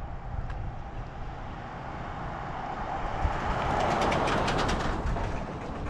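Bicycle riding along a rough campground road: a steady rumble of tyres and wind that swells in the middle, with a fast, even ticking through the loudest part.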